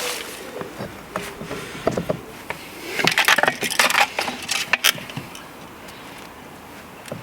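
Scattered clicks, knocks and rattling of objects being handled, with a denser clatter about three to five seconds in.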